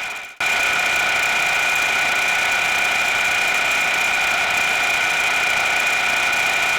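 Metal lathe running steadily with a whine in several steady pitches, during a light finishing pass on the bore of a steel bushing. The sound cuts in abruptly just after the start.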